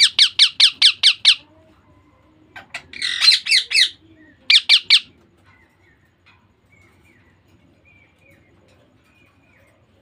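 Baby Indian ringneck parrot squawking in quick runs of sharp, high calls: about seven in a row, then a harsher burst of calls around three seconds in, and three more near five seconds. After that there are only faint soft chirps.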